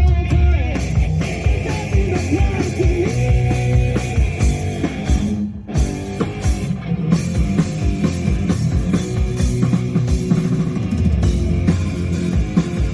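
Live rock band with electric guitar, bass and drums playing a hard rock song, with a brief break about five and a half seconds in.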